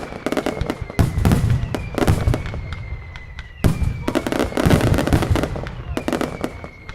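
Mascletà firecrackers going off in rapid strings of bangs, in waves, with heavier low booms about a second in and again near four and five seconds in. A faint high whistling tone keeps sliding slightly down underneath.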